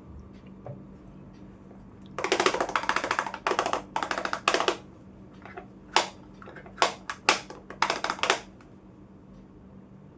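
Fingernails tapping and scratching on miniature toy kitchen pieces: rapid bursts of close-set taps about two seconds in and again near the end, with a few single sharp taps in between.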